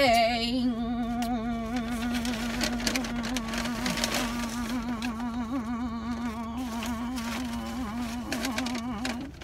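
A person humming one long held note with a slight waver in pitch, stopping near the end.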